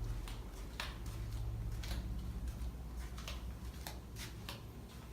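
Faint, irregular clicks and taps, about two a second, over a steady low room hum: handling noise and footsteps while walking with a handheld camera.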